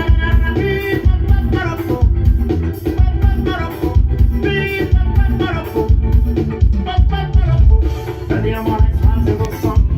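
Brazilian funk song played loud through a small home-built speaker box: a heavy bass beat pulsing about twice a second, with sung vocals over it.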